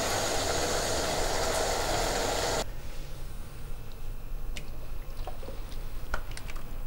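Chicken jalfrezi sauce sizzling and bubbling in a wok, just off the heat, cut off suddenly about two and a half seconds in. After that come quieter scattered clicks and scrapes as the curry is tipped out of the wok into a bowl.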